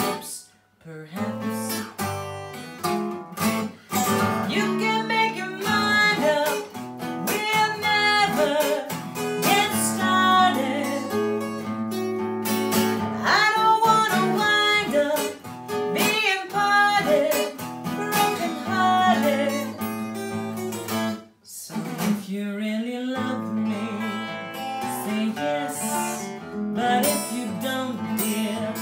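Acoustic guitar strummed while a woman sings, with a short break about two-thirds of the way through before the playing picks up again.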